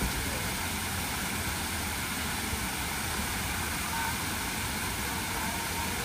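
Water from a tiered cascade fountain pouring over its basin edges into the pool, a steady, even rush that does not change.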